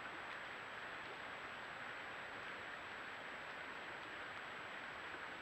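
Steady, even background hiss with a faint, thin high-pitched whine; no footsteps or animal calls stand out.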